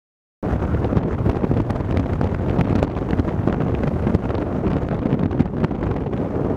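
Stormy bura wind buffeting the microphone: a loud, low, gusting rumble that starts about half a second in.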